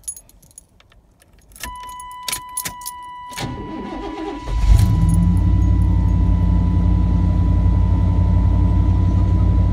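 Keys rattling and clicking in the ignition, then a steady high warning tone sounds from about two seconds in. The pickup's engine cranks briefly and catches about four and a half seconds in on a cold start after sitting all winter, then settles into a steady idle.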